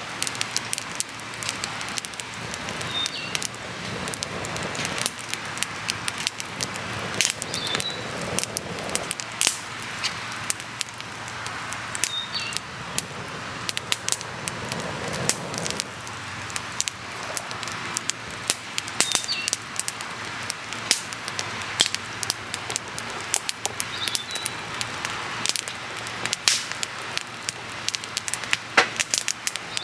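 Wood campfire crackling, with frequent sharp pops and snaps over a steady hiss. A bird gives a short high call every few seconds.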